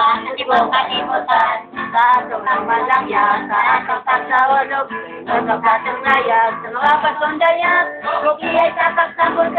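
Street carolers singing to a strummed acoustic guitar, a continuous sung melody.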